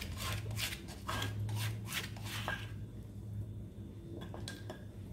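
A spatula scraping and tapping against a steel cooking pot as ground spice paste is knocked off into the boiling water: a quick run of short scrapes and knocks, then a few more near the end.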